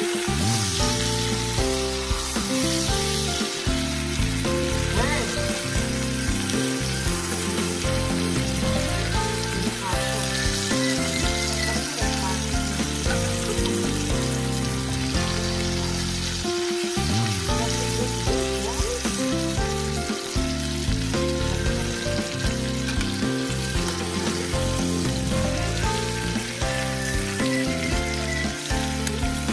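Ribeye steaks searing in a cast-iron skillet: a steady sizzle of hot fat, with background music playing underneath.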